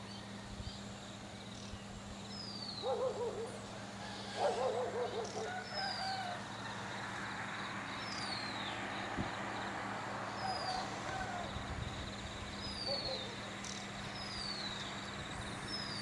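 Dawn birdsong: one bird repeats a short, high, falling whistle about every two seconds while other birds chirp more softly. Two louder wavering animal calls come about 3 and 4.5 seconds in, over a steady low hum.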